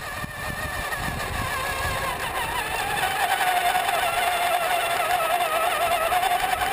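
A motor running with a wavering whine that slides down in pitch over the first three seconds and then holds steady.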